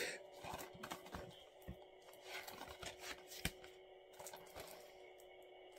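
Faint handling noises of packaging and a plastic disc case: scattered light clicks and soft rustling, with two sharper clicks about a second and a half and three and a half seconds in.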